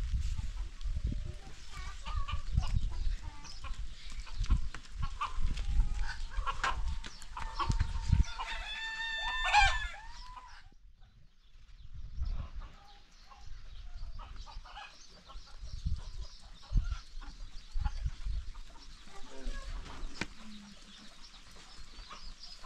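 Chickens clucking, with a rooster crowing once about eight seconds in, a call of about two seconds. Low knocks and rumbles run under it.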